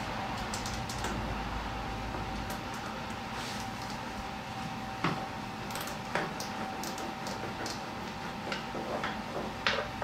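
Ratchet wrench clicking in short runs as a 10 mm bolt on a snowblower's shifter plate is loosened, with a few sharper metal knocks as the parts are handled, the loudest near the end.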